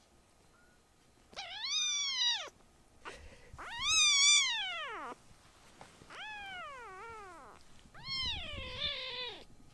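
Young kitten meowing loudly four times: long drawn-out cries of a second or more each that rise and then fall in pitch. The second cry is the loudest and the third is softer.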